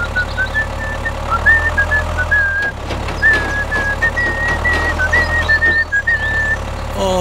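A high whistled tune, one note at a time stepping up and down, over a steady low engine-like rumble.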